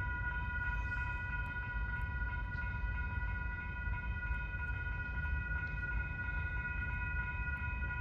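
A diesel locomotive's multi-chime air horn sounding one long unbroken blast, a steady chord, over a low rumble.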